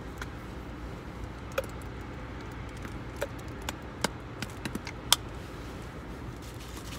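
Scattered light taps and clicks of hands preparing a sandwich, the sharpest about five seconds in, over a steady low hum.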